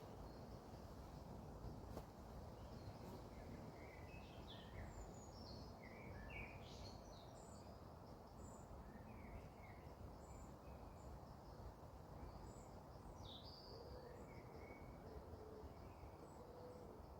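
Faint birdsong, scattered short chirps and trills starting a few seconds in, over a quiet, low outdoor background rumble.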